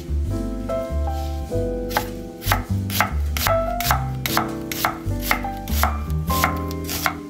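Chef's knife slicing an onion into rings on an end-grain wooden cutting board, each cut ending in a sharp knock on the wood, about twice a second, with the strokes starting about two seconds in.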